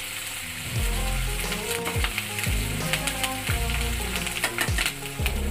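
Sliced onions and curry leaves sizzling and crackling in hot oil in a nonstick pan while a spatula stirs and scrapes them, giving frequent sharp clicks. Background music plays underneath, louder from about a second in.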